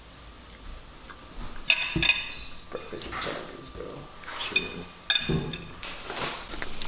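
Metal fork clinking and scraping against a dinner plate while eating scrambled eggs: several sharp clinks with a ringing edge, the loudest about two seconds in and again near five seconds, with softer scrapes between.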